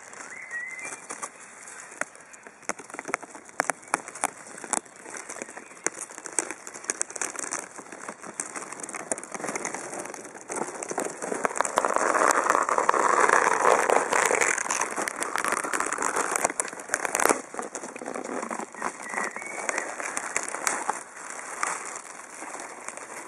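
Dense crackling noise full of sharp clicks, swelling to its loudest about halfway through and then easing off.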